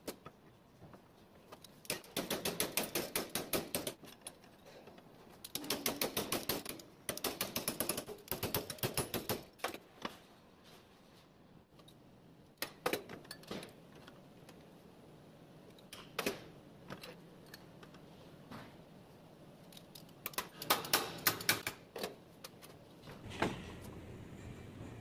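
Light hammer blows on flat steel bar clamped in a bench vise, in quick runs of about seven taps a second with pauses and a few single blows between, as the steel is bent into a bracket.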